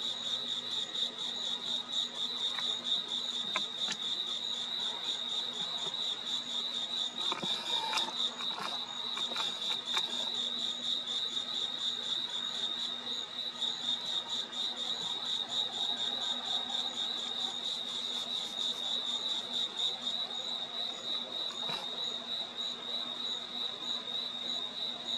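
Crickets chirping in a steady night chorus, a continuous high rapid trill. A faint low hum sits beneath, and a few faint clicks come about eight to ten seconds in.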